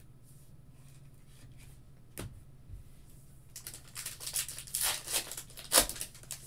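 Foil wrapper of a trading-card pack crinkling and tearing open in the hands: a quick flurry of rips and rustles in the second half, after a single click about two seconds in.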